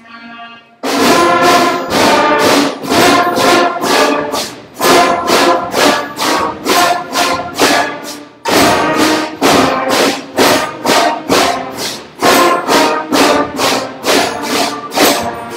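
Beginning school band of brass and woodwind instruments playing loudly in short, punched notes, about three a second. The band comes in suddenly about a second in after a soft passage, plays in phrases with brief gaps, and the sound dies away near the end.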